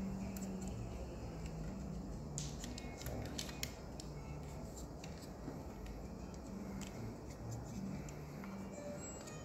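Small plastic clicks and taps of a Tamiya 1/24 McLaren Senna model kit's engine and chassis parts being handled, with a cluster of them between about two and a half and four seconds in.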